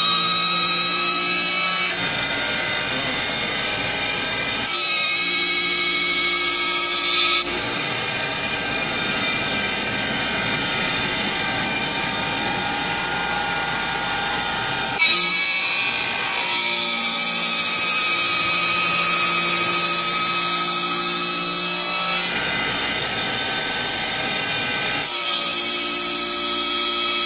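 CNC wood lathe cutting a square wood blank into a curved leg: the machine's motors whine steadily under the noise of the cutters chewing the wood. The pitch and mix of the whine shift every few seconds as the cut moves along the piece.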